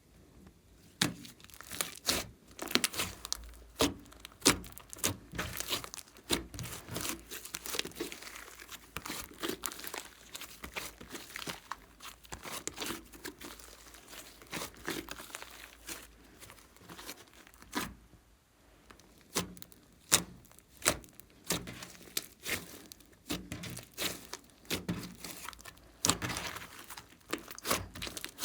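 Glossy slime being squeezed, stretched and folded by hand, with irregular sticky crackles and clicking pops as air pockets burst.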